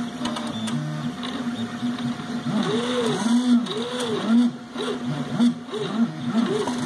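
Anet A8 3D printer printing, with its stepper motors whining in rising and falling tones as the print head traces round parts. The whines come about once a second from about a third of the way in and come faster near the end, over a steady hum.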